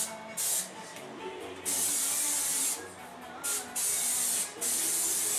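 Aerosol vegetable-oil cooking spray hissing in five bursts as a baking dish is coated. There is a short spurt near the start, a longer one of about a second around the middle, then three more close together near the end.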